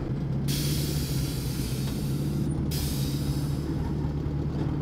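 Volkswagen Senda's engine idling under a long, loud hiss of air escaping as its air suspension is let down. The hiss starts suddenly about half a second in, breaks off briefly about halfway, then resumes and stops near the end.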